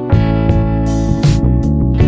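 Background music: a guitar-led track with plucked and strummed strings over a steady beat.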